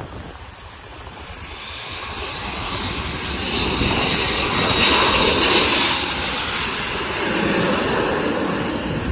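Boeing 737-700's CFM56-7B turbofan engines as the landing airliner passes: a jet whine and rumble that grows steadily louder, peaks about five to six seconds in, then drops in pitch and eases off.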